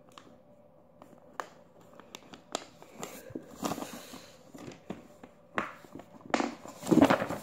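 Paper being handled and rustled, with a few light taps at first and louder rustling in the last couple of seconds.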